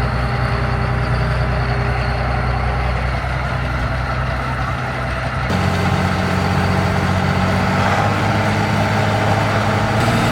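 A heavy engine running steadily with a low rumble, its note shifting abruptly about five and a half seconds in.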